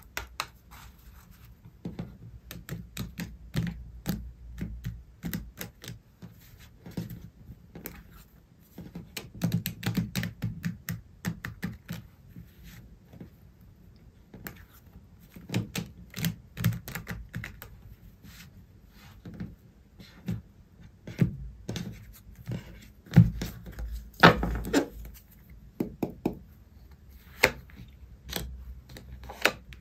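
A tarot deck being shuffled by hand: quick, irregular runs of clicks and taps as the cards slide and slap together. Near the end, cards are laid down onto the table.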